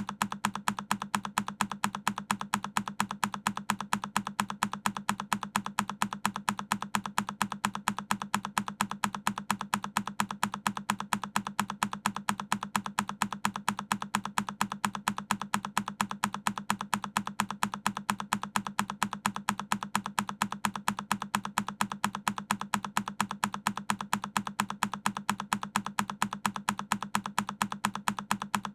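A single key press on a Keychron K10 mechanical keyboard, looped so the same click repeats at an even, quick rate, several times a second.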